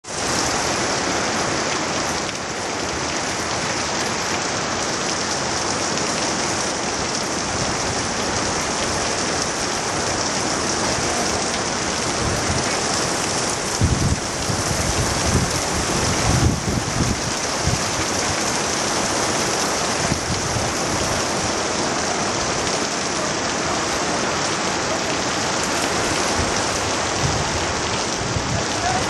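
Heavy rain pouring down steadily. From about halfway through, gusts of strong wind rumble on the microphone.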